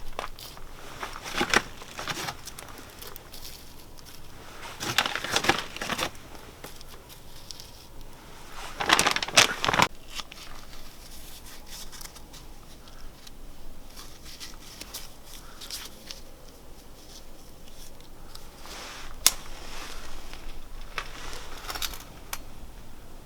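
Crinkling and rustling of wrapping being handled, in several short bursts with quieter handling between.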